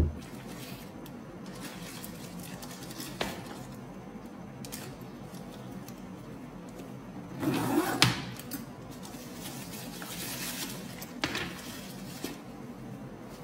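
Plastic wrap on a handbag's handles rustling and crinkling in a few short bouts as it is handled, with a sharp tap about eight seconds in.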